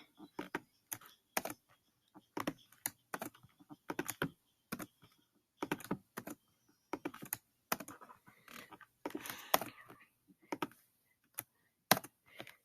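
Typing on a computer keyboard: irregular single keystrokes and short runs of keys, with a quicker, denser run around the middle.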